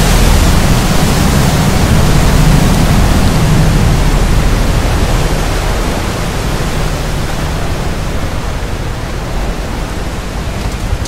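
Canal express boat passing close, its engine running loud over the rush and splash of its wake. The engine fades after about five seconds, leaving the rushing water.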